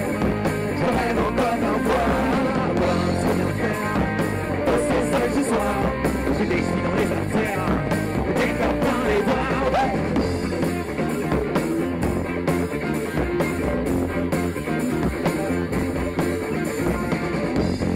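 Live rock band playing, with electric guitars, bass guitar and a drum kit keeping a steady beat.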